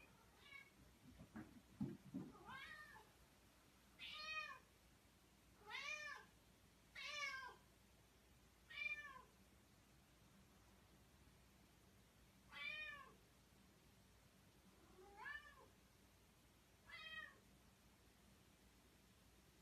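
A cat meowing repeatedly, about eight separate meows a second or two apart, each one rising and then falling in pitch. A few low thumps come about two seconds in.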